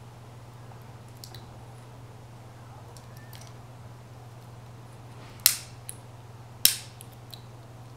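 A handheld lighter being struck to light a hand pipe: two loud, sharp clicks a little over a second apart, about two-thirds of the way in, with a few fainter clicks around them, over a steady low hum.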